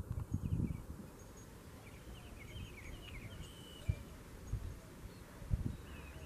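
Small birds calling, with a quick cluster of short chirps near the middle. Several low thumps sound over a steady low rumble of outdoor background noise.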